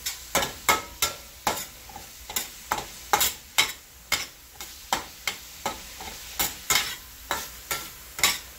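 A spatula scrapes and taps against a stainless steel skillet, roughly three strokes a second, as ground beef is stirred and broken up while browning. Under the strokes the meat sizzles steadily.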